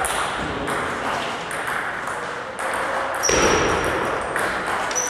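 Table tennis ball clicking against the table and paddles at intervals, over a steady hiss of room noise.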